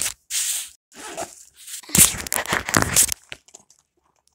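Stiff clear plastic rustling and crinkling as it is handled close to the microphone. It comes in bursts, a short one about half a second in and a louder one lasting about a second from two seconds in, then it falls quiet.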